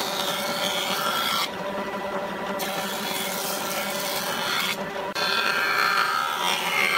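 Jointer running, with a softwood board fed over its spinning cutterhead: a steady machine hum under a loud rasping cutting noise. The cutting breaks off twice for a moment, about a second and a half in and again near five seconds, as the board is repositioned and fed again.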